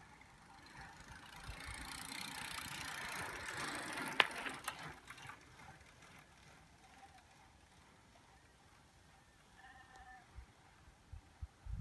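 Road bicycle passing close by on a climb: tyre and drivetrain hiss swells over a couple of seconds and fades away, with a single sharp click at its loudest.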